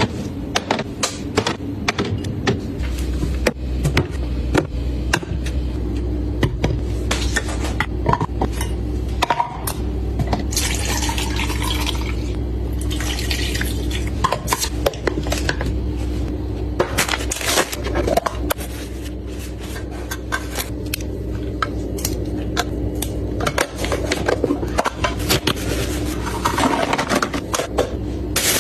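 Kitchen handling sounds: dishes and containers clinking and being set down again and again, with short spells of running tap water, over a steady low hum.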